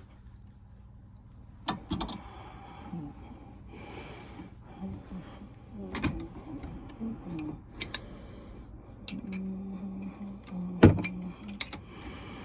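Metal clicks and knocks as a socket, wrench and motorcycle lever are set into a bench vise and the vise is tightened to press out a bearing, with the loudest knock near the end. A low steady tone comes and goes in the last few seconds.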